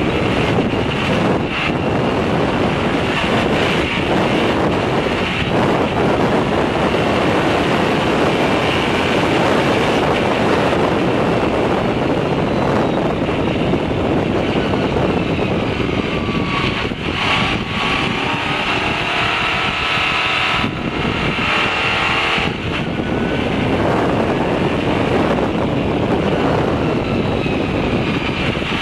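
Race car engine heard from inside the cockpit at racing speed on a wet track, loud and steady over a constant hiss. In the second half the engine note rises and falls and briefly dips a few times, as at gear changes or lifting off.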